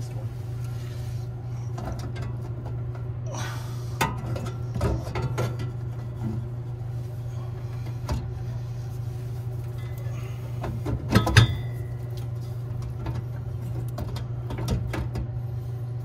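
Metal clicks and knocks as a replacement inducer draft motor assembly is handled and fitted onto a rooftop gas unit's panel, with a sharp cluster of knocks about eleven seconds in. A steady low hum runs underneath.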